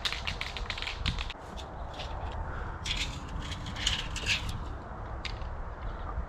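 Aerosol can of gray marking paint shaken so its mixing ball rattles, then sprayed in several short hisses. A low steady rumble runs underneath.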